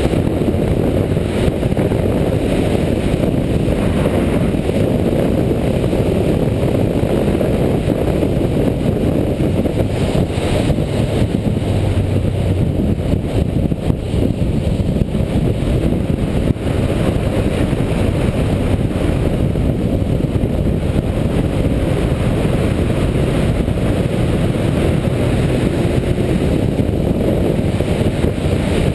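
Suzuki GS500's air-cooled parallel-twin engine running steadily at road speed on a ridden motorcycle, mixed with wind rushing over the microphone.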